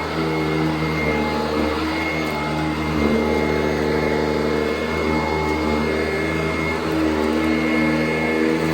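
Sanitaire SC899 commercial upright vacuum running steadily while vacuuming carpet, its motor pitch shifting slightly as it is pushed back and forth.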